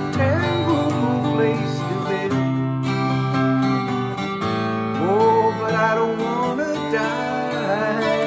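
Acoustic guitar strummed in held chords, with a man's voice singing along in gliding phrases near the start and again in the second half.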